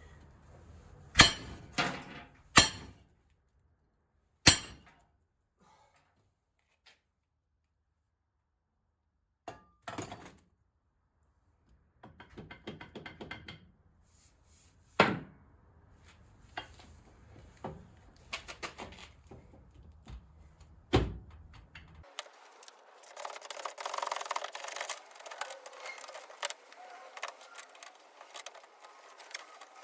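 Single heavy knocks and thunks, a few seconds apart, typical of metal parts and tools being handled or struck during repair work on a rotary cutter. From about two-thirds through, this gives way to a denser rattling, scraping clatter of small clicks.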